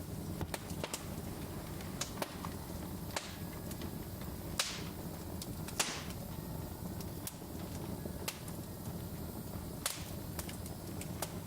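Wood fire burning, crackling with scattered sharp pops over a steady low rumble; two louder pops about halfway through, each trailing a brief hiss.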